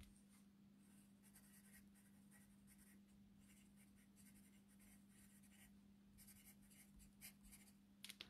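Faint scratching of a pencil writing on a paper note, in short irregular strokes with brief pauses.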